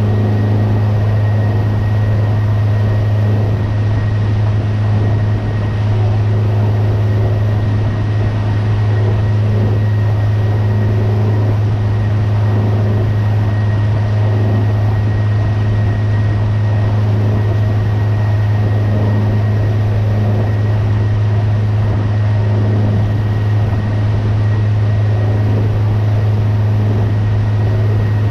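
Mercury 60 hp outboard motor pushing the boat under way, a loud steady drone that holds one pitch with a faint high whine above it. The motor is in its break-in run.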